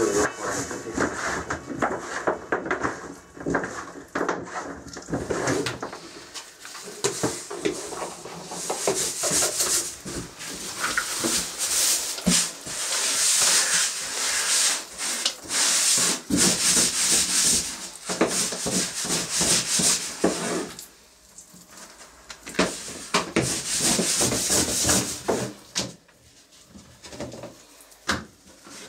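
Repeated rubbing and scraping strokes with small clicks, loudest in the middle and dying down near the end.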